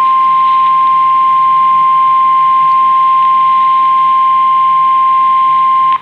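NOAA Weather Radio 1050 Hz warning alarm tone, one loud, steady, unbroken tone sounding through a weather radio's speaker, then cutting off suddenly near the end. The tone signals that a warning broadcast follows, here a Severe Thunderstorm Warning.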